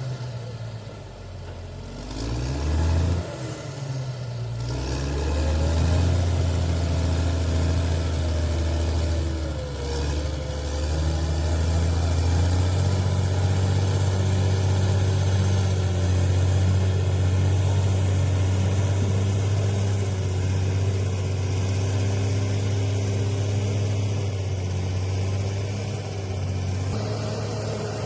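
Bulldozer's diesel engine running hard, its revs climbing a few seconds in and then held steady at a loud, even drone, with a thin high whine above it.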